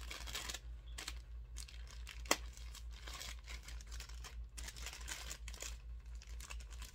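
Clear plastic poly bag crinkling and rustling as it is handled and pulled open, with a sharp click about two seconds in.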